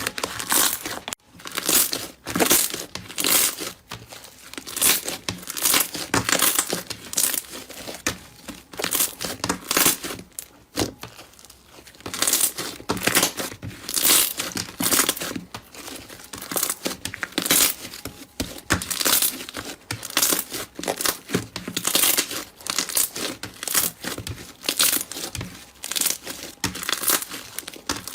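Slime being squeezed and worked by hand, giving a run of short crackling squishes about one or two a second.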